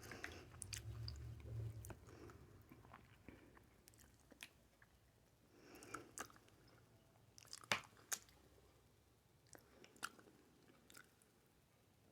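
Faint close-miked chewing of aguachile verde: soft wet mouth clicks and smacks at uneven intervals, the sharpest two coming close together about eight seconds in.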